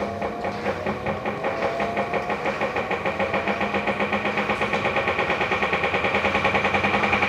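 Electrolux washing machine's mechanism running with a rapid, even knocking pulse that speeds up and grows louder. The owner calls the noise not normal, and the machine is also not agitating the wash: a sign of a faulty mechanism.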